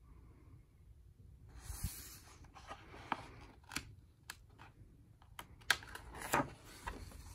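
A page of a large hardcover picture book being turned by hand: faint paper rustling and sliding, with a string of sharp little ticks and taps as the stiff page is handled.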